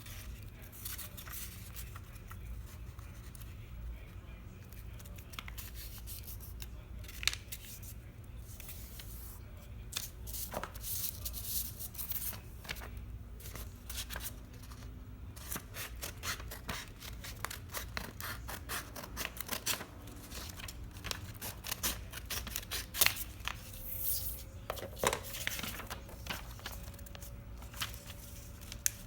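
A sheet of origami paper being folded and creased by hand: repeated crisp crinkles, rustles and clicks of the paper, busier from about ten seconds in.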